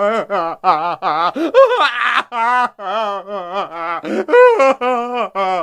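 High-pitched cartoon character voice in a fast run of short, wavering syllables, about four or five a second, with a snickering, laugh-like sound.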